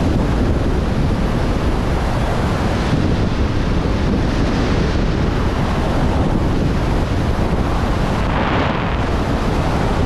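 Loud, steady wind noise from airflow rushing over a GoPro's microphone in wingsuit flight, a dense low buffeting that does not let up.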